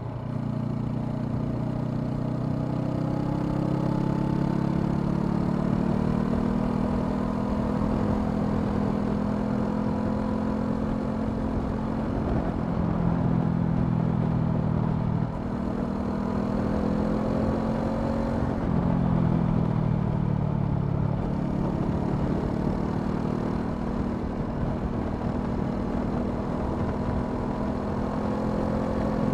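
Honda CL500 parallel-twin engine running under way, the note climbing as the bike accelerates and then holding steady. It drops sharply twice, about halfway through and about two-thirds through, and climbs again each time.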